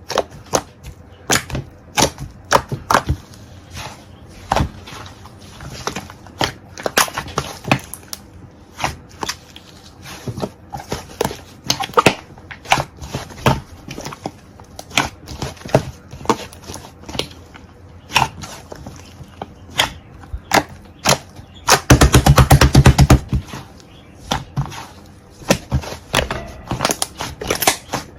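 Slime being pressed and poked by hand, making irregular sharp clicks and pops. Late on, about a second of rapid crackling pops.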